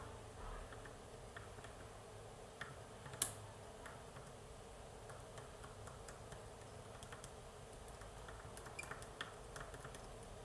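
Faint, scattered metallic clicks and ticks of a lock pick working the tapered pins of a Pollux 7 lock cylinder held under a tension bar, with one sharper click about three seconds in.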